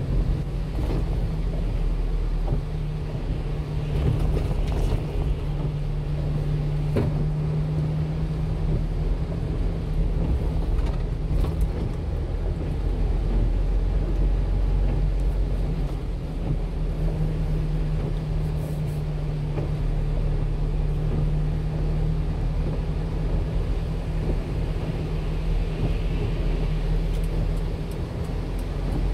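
Small 1-ton delivery truck driving on a wet road, heard from inside the cab: a steady low drone of engine and road noise, with a few faint clicks.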